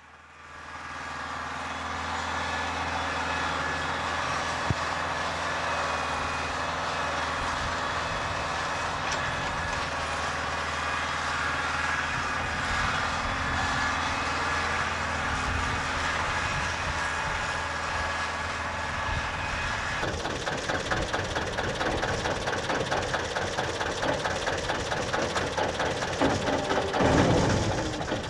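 Diesel engine of a crawler-mounted grab loader running steadily as it loads peat sods onto field-railway wagons. About 20 seconds in, the sound changes to a fast, even clatter from the narrow-gauge bog railway's diesel locomotive and its loaded peat wagons rolling along the track, with a louder engine surge near the end.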